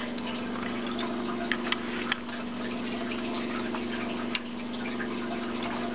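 Light scattered clicks of plastic Lego pieces being handled, over a steady low hum.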